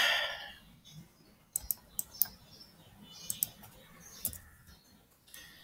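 Scattered light, sharp clicks of a computer mouse and keys as someone works a software form, about seven in all, some in quick pairs. A short rush of noise right at the start is the loudest sound.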